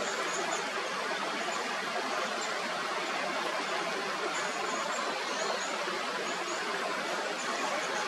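Mountain stream rushing over rocks in a steady, even rush, with faint, short, high-pitched chirps coming and going above it.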